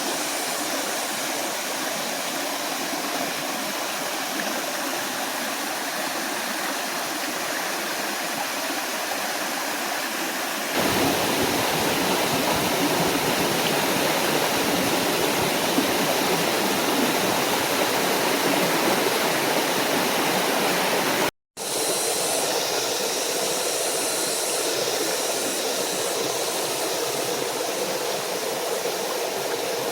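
Steady rushing of a small forest waterfall and stream. About a third of the way in it turns louder and fuller, and just past the middle it cuts out for a split second before the rush resumes.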